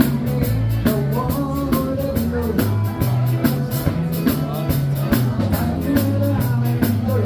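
Background rock music with drums, bass, guitar and a singing voice, with a steady beat.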